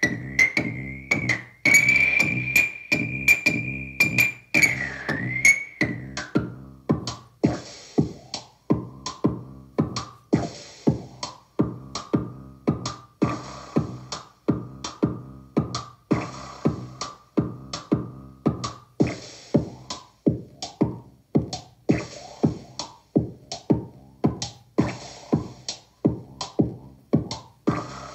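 Korg Volca Drum beat played through an Alexander Syntax Error effects pedal: a steady, evenly repeating drum-machine pattern. A high ringing tone sits over it, wavering at first, then dropping lower about six seconds in and holding there.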